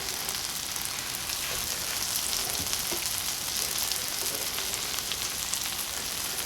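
Garlic butter sizzling in a hot pan as buttered hamburger bun bottoms toast: a steady sizzle with a few faint clicks.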